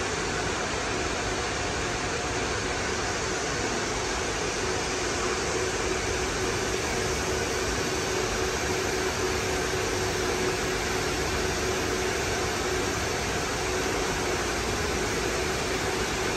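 A machine's motor running steadily: an even whirring noise with a constant hum under it.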